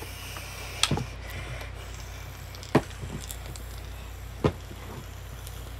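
A few short, sharp knocks at uneven intervals, over a steady low hum.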